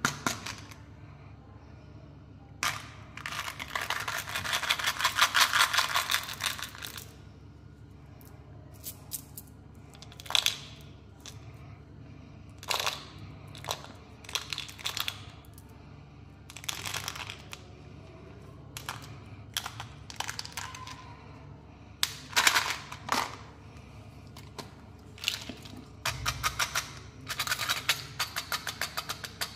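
Hard plastic Tic Tac box being handled and opened, with the small hard mints rattling out of it in a long run of rapid clicks. Later come scattered clicks and taps of plastic packaging and a plastic toy being handled, and another quick run of clicks near the end.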